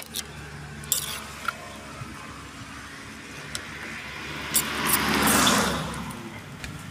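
A spoon and wooden pestle knock lightly against a clay mortar a few times while papaya salad is mixed and scooped, over a steady low hum. About four and a half seconds in, a rush of passing traffic swells and fades.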